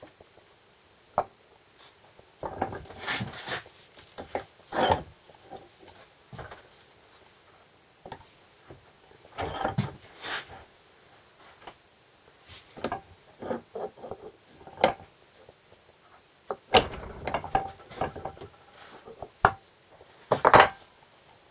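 Hand arbor press work with wooden packing blocks: scattered knocks, scrapes and clunks of wood and steel parts being set on the press bed and pressed as a mud shield goes onto a transfer box front output housing. The loudest clunk comes near the end.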